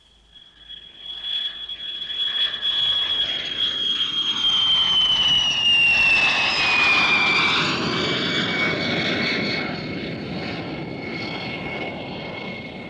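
Handley Page HP115 research aircraft flying low past on approach, its single Bristol Siddeley Viper turbojet building to a peak and easing off. Over the jet noise sounds the high whistle of an air-driven Hartmann-type noise generator mounted below the wing, about 3 kHz, which drops in pitch as the aircraft passes, about halfway through. The underwing source is unshielded by the wing, so the whistle comes through at full strength.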